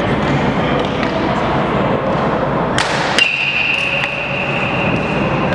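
Steady noise of an indoor batting cage facility. A sharp crack comes about three seconds in, then a steady high tone holds for about two seconds.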